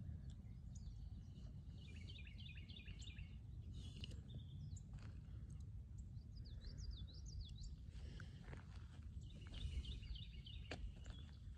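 Songbirds chirping in quick high trills in three bursts, over a steady low rumble of wind on the microphone.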